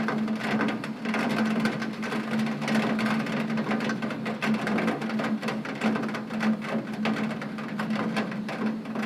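Heavy rain hitting a window pane: a dense, unbroken stream of drop hits, with a steady low hum underneath.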